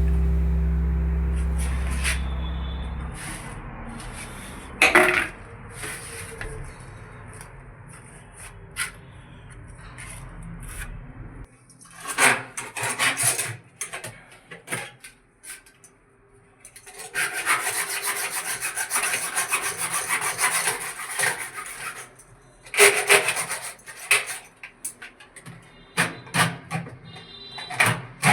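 Hand work on bathroom fittings: rubbing and scraping with scattered clicks and knocks, and one long stretch of steady rasping past the middle. The last notes of a song fade out at the start.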